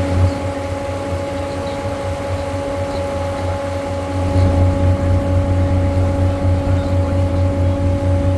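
River cruise boat's engine running: a low drone with a steady higher hum, getting louder about four seconds in.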